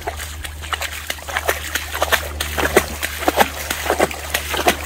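Footsteps wading through floodwater on a road, each step splashing and sloshing, in a run of irregular splashes, with rain falling on the water.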